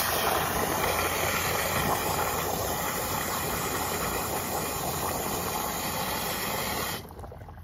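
Garden-hose spray nozzle jetting water into the soil around the buried casting: a steady, loud hiss of spraying water that cuts off suddenly about seven seconds in.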